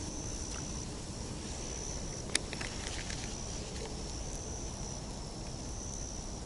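Insects chirring in high-pitched stretches of about a second, broken by short pauses, with a single sharp click about two and a half seconds in.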